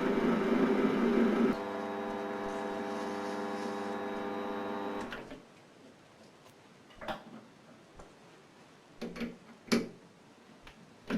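A steady machine hum that cuts off about five seconds in, followed by several short knocks and clicks.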